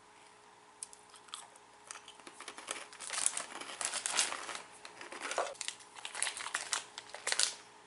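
Crunchy chewing of a black sesame karintō, the hard fried Japanese snack, then crinkling of a plastic snack wrapper being torn open. The crackly noises start about two seconds in and come in irregular clusters.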